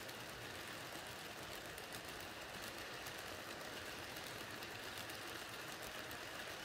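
H0-scale model ore hopper cars rolling past on the track: a steady whirring rattle of small wheels on the rails. The locomotive has no sound decoder, so this is mechanical running noise only.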